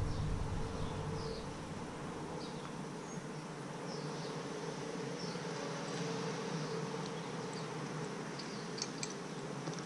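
Steady low background hum with faint scattered clicks and taps of small carburetor parts being handled and fitted, and a couple of sharper clicks near the end.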